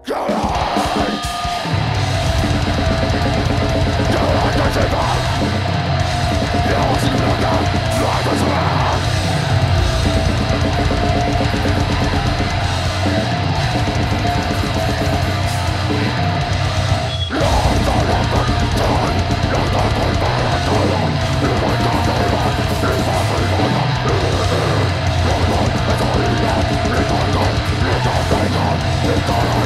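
Heavy metal band playing live at full volume: drum kit, distorted guitars and bass, with vocals. The song kicks in abruptly at the start and stops briefly a little past halfway before carrying on.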